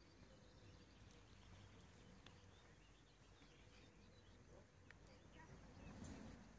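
Near silence: faint open-air ambience with a few brief, faint bird chirps.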